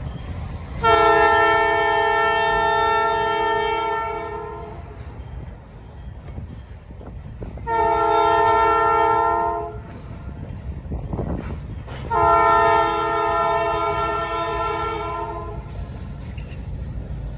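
Diesel locomotive's multi-chime air horn sounding three blasts: a long one, a shorter one, then another long one, over the low rumble of the locomotive.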